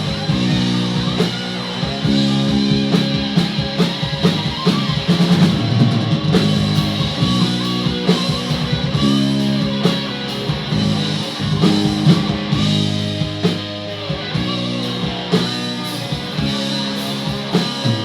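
Live rock band playing an instrumental passage: electric guitar over bass and drum kit.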